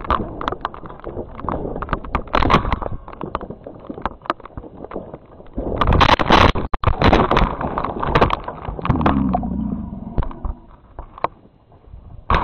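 A mountain bike rattling and clattering over a rocky trail, heard from a helmet-mounted camera. About six seconds in there is a loud, jumbled crash as the rider and camera tumble onto the rocks. It is followed by quieter scrapes and knocks as things come to rest.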